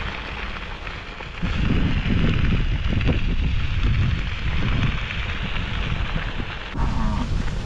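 Bicycle tyres rolling over a gravel road, with a steady crackling hiss, while wind buffets the microphone with a heavy low rumble.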